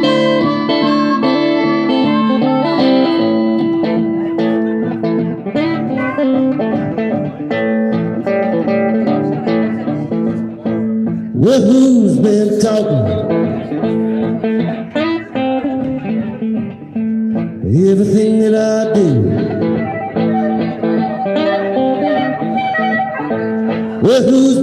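Live acoustic blues: a guitar playing steadily with a harmonica, and a man's voice singing short phrases a little before halfway, about three-quarters of the way in, and again near the end.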